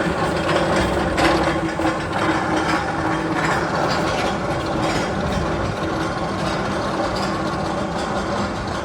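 Steady mechanical clattering and ratcheting over a low hum, like gears and machinery running, from a roller-coaster tunnel sound-effect track.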